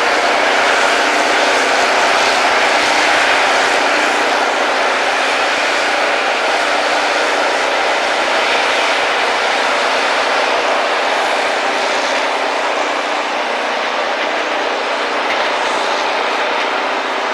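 Rail grinding machine at work, its grinding wheels running on the railhead in a loud, continuous grinding roar over a steady motor hum that eases off slightly toward the end.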